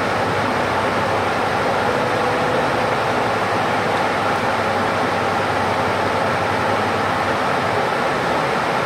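Steady running noise of a public bus heard from inside the cabin as it drives along the road: engine and tyre noise blending into one even drone.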